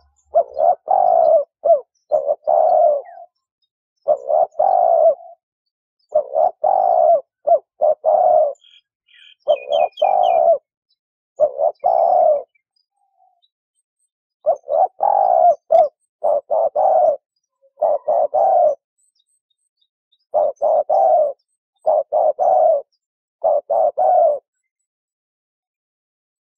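A dove cooing in short phrases of a few low notes, repeated again and again with brief pauses between them. A faint, quick series of high chirps from another bird comes in about nine seconds in.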